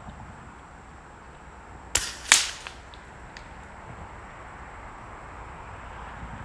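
Daystate Red Wolf .25 PCP air rifle firing: a sharp crack about two seconds in, then a second, louder report a third of a second later that trails off, followed by a few faint clicks.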